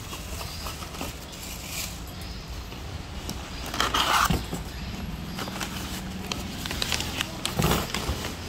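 Unboxing handling noise: cardboard box flaps and plastic packaging rustling and crackling as the hand mixer's parts are taken out, with louder bursts about four seconds in and again near the end.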